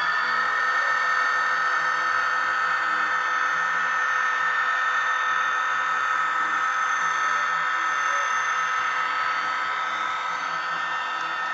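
MRC sound decoder in a Bachmann SD40-2 model locomotive playing its diesel engine sound through the model's small speaker: a steady high whine over a faint pulsing engine beat, easing slightly near the end.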